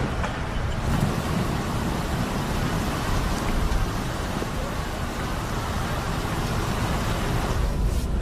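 Storm noise: a steady rush of wind and rain over a deep rumble, its hiss thinning out near the end.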